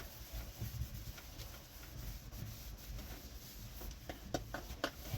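Cloth rubbing wax by hand onto dull, weathered painted metal, a soft steady scrubbing with a few light clicks near the end.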